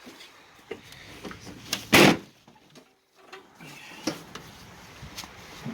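A single loud knock about two seconds in, like a lid or panel being handled, with a few faint clunks around it.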